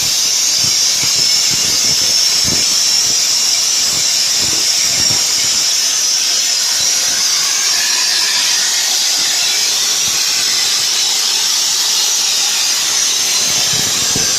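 Tesla Weld CUT160 plasma cutter cutting 25 mm steel plate: the plasma arc and its air jet give a loud, steady high hiss.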